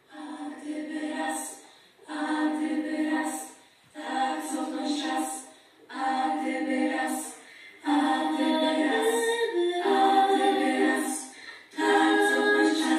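Academic choir singing a cappella in short phrases of about two seconds each, with brief pauses between them, then a longer held phrase about two-thirds of the way through.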